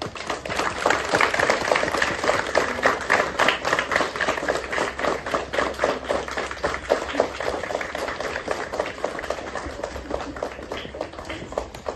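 Audience of students applauding, many hands clapping, starting suddenly and thinning out near the end.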